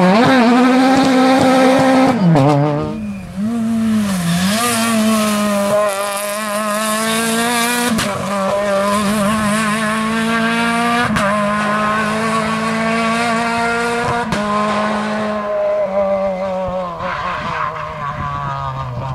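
Rally car engines at high revs. For about the first three seconds a car revs and accelerates hard. After a brief dip, another engine is held near full revs with a wavering pitch, with three sharp cracks about three seconds apart, and it drops a little in pitch near the end.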